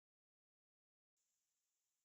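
Near silence: dead digital silence.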